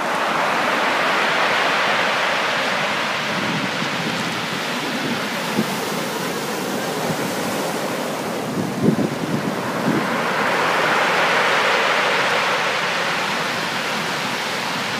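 Ocean surf breaking and washing up a pebble beach. The wash swells loud at the start and again around eleven seconds in.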